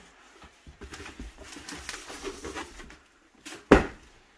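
Packing paper rustling as a cast iron waffle maker piece is unwrapped by hand, then one sharp knock near the end as the heavy piece is set down on a wooden hutch top.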